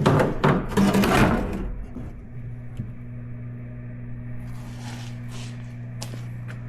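Plastic rear bumper cover knocking and clattering against the car body as it is pushed and worked into place, loudest in the first two seconds, then a few light clicks over a steady low hum.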